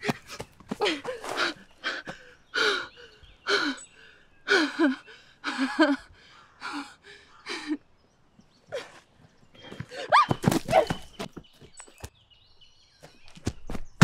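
A woman sobbing in short, gasping bursts, about one a second, then after a pause a louder wavering cry that rises in pitch.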